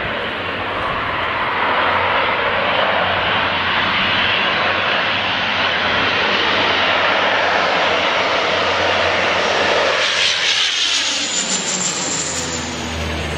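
Canadair CL-415 water bombers' twin turboprop engines droning loudly as the aircraft fly low overhead. From about ten seconds in, the sound sweeps and shifts in pitch, with a high whine that rises and falls as one passes close.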